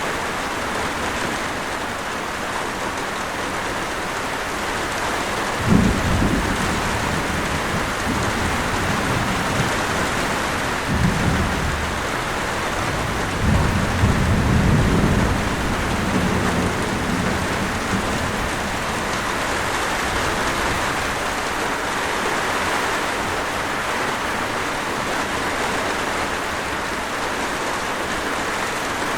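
Steady heavy rain hissing, with thunder: a sudden clap about six seconds in, then rolling rumbles a few seconds later that fade back into the rain.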